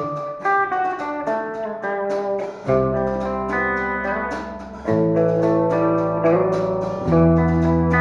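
Electric guitar playing a melodic instrumental opening of held notes. About three seconds in, deep held bass notes join under it, changing roughly every two seconds.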